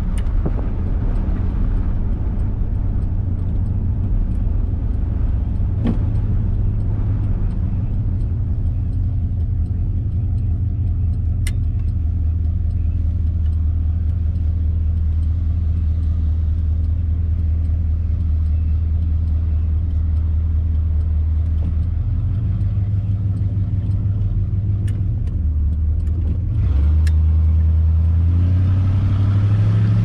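1957 Ford Thunderbird's V8 engine running with the car under way, a steady low drone with road noise and a few faint ticks. Near the end the engine note shifts and grows a little louder.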